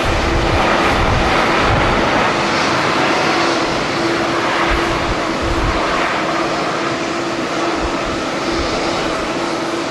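Passenger jet engines running loud and steady, with a steady hum, easing off slightly toward the end. Wind buffets the microphone in irregular low gusts.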